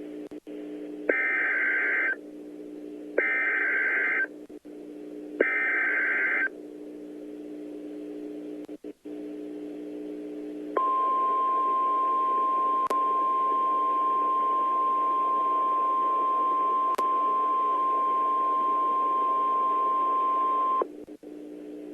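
Emergency Alert System header for a tornado warning over weather radio. Three one-second bursts of screechy SAME digital data come first, then about ten seconds of one steady, high warning alarm tone, all over a low steady radio hum.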